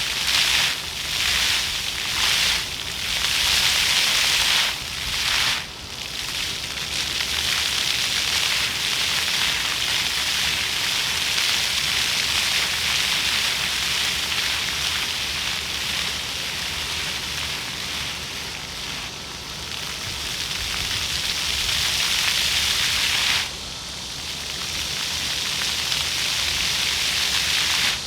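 Floor fountain jets spraying up and splashing down onto the paving, a steady hiss of falling water. It surges in short pulses for the first several seconds, then runs evenly, and drops suddenly in level near the end.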